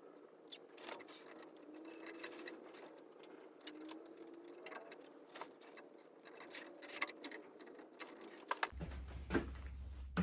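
Scattered small clicks and light rattles of hands fastening tie downs around a light fixture, irregular and uneven.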